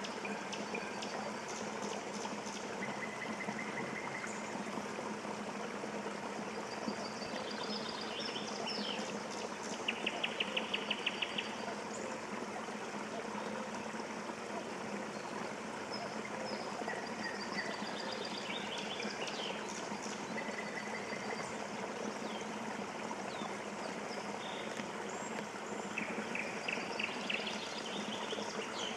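Steady rush of flowing water, with wild songbirds calling over it; a loud rapid trill about ten seconds in and another near the end.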